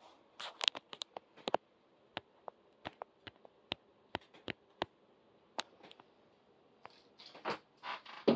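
Irregular sharp clicks and light taps, bunched in the first second and a half and sparse after that, then a few short scraping rustles near the end.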